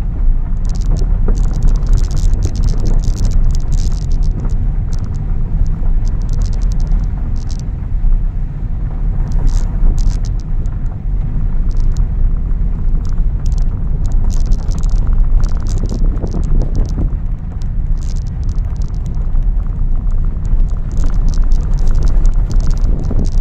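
Car driving on a dirt and gravel track, heard from inside the cabin: a steady low rumble of engine and tyres, with frequent crackling ticks of gravel under the tyres.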